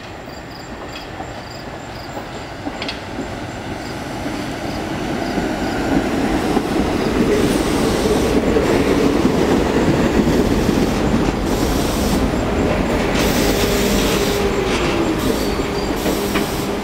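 Staten Island Railway R44 subway train pulling into the station: the rumble of its wheels on the rails grows steadily louder over the first six seconds as it approaches, then stays loud as the cars run past and slow to a stop alongside the platform.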